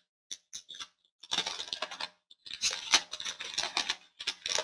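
Foil trading card pack being torn open and crinkled in the hands: a few light ticks, then two spells of crackling wrapper.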